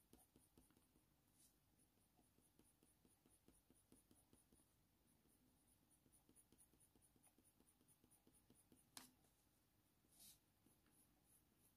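Very faint scratching of a Faber-Castell Polychromos colour pencil shading in many quick short strokes on hot-press watercolour paper, with one small click about nine seconds in.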